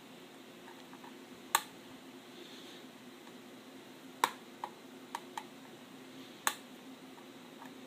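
Sharp clicks and ticks of a screwdriver and small parts against a netbook's plastic back case while the memory cover screw is taken out: three loud clicks a couple of seconds apart, with fainter ticks between them.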